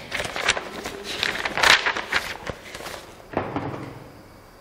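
Sheets of paper rustling and crackling as they are handled, in a run of short irregular bursts. The loudest comes a little before the middle and another near the end, fading out about four seconds in.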